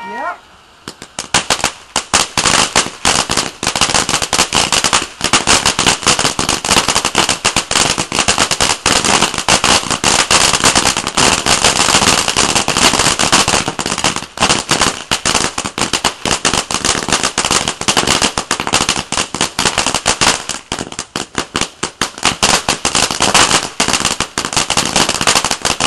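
A consumer ground fountain firework crackling: dense, rapid, irregular pops and cracks that start about a second in and carry on without a break.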